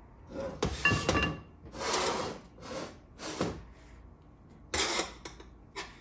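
Steel transmission gear-train parts being handled on a workbench: the output shaft, planetary carrier and thrust washers are picked up, slid and set down in a series of clunks and scrapes. One clunk about a second in has a brief metallic ring.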